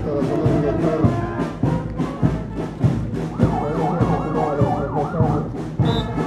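Marching band of brass and bass drums playing over a steady drum beat. About three and a half seconds in, an ambulance siren sounds a fast rising-and-falling yelp for about two seconds.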